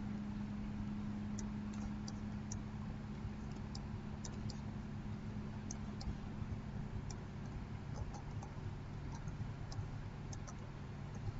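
Computer mouse clicking in small, irregular, faint clicks, about twenty over the stretch, over a steady low hum.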